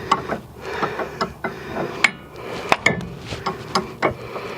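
Hand tools and metal suspension parts clinking and knocking during work on a front stabilizer bar link: a string of sharp taps and clanks, the loudest about two seconds in and again just under three seconds in.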